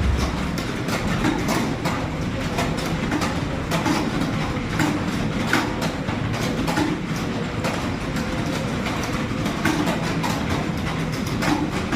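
Rapid, continuous clatter of computer keyboard keys during a timed typing-speed test, many keystrokes a second without pause.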